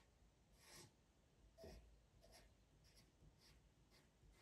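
Faint scratching of a Stabilo CarbOthello pastel pencil being stroked over a printed photo on paper as an outline is traced: a series of short strokes, one or two a second.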